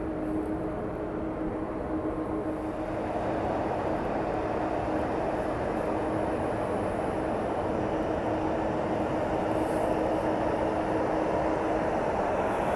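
Airliner jet engines running with a steady hum, growing louder about three seconds in and holding there.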